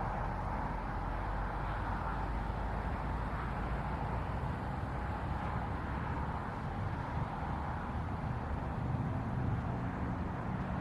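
Steady vehicle noise: a low rumble with a faint steady hum.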